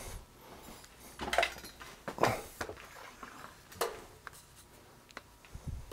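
Faint handling noises: a few light knocks and rustles, the loudest about two seconds in, as small parts are handled inside a plastic antenna housing.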